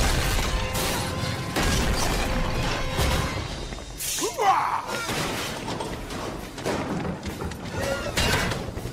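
Film action soundtrack: dramatic music over crashing, shattering debris and heavy impacts as an armoured truck smashes into a building. The loudest crash comes right at the start.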